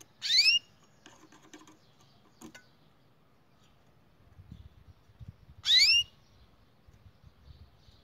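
Canary giving two loud, short upward-sweeping call notes about five seconds apart, with a brief spell of light tapping about a second in.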